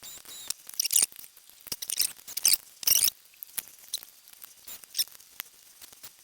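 Irregular small clicks and short high-pitched scrapes and squeaks of internal parts being handled and pulled inside an opened MacBook Pro, as the drive and RAM are swapped out.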